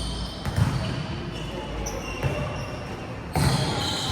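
Volleyball thumping on hands and bouncing on an indoor court, with short high squeaks. Loudest hit about half a second in, and a louder burst of activity near the end.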